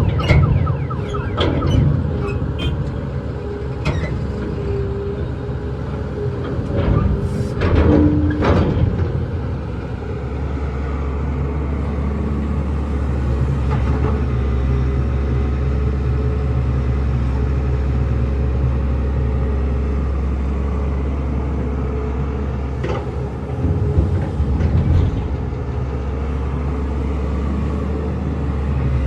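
Heavy diesel earthmoving machinery running: a steady low engine drone with occasional clanks and knocks, busiest about seven to nine seconds in and again around twenty-four seconds in.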